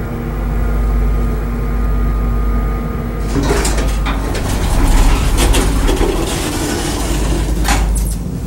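Elevator car running with a steady hum of fixed tones over a low rumble. About three seconds in the sliding doors open, and a noisy stretch of knocks and clatters follows as the car is left.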